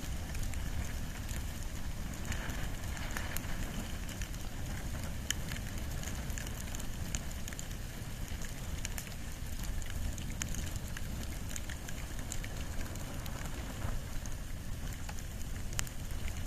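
Campfire of wood and bamboo burning, with scattered sharp crackles and pops over a steady low rumble.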